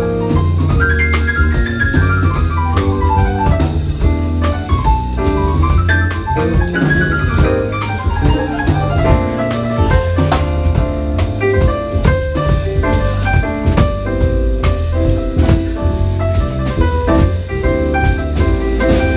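Live jazz quartet playing: piano, bass and drum kit, with quick falling runs of notes over a steady bass line and cymbal strokes.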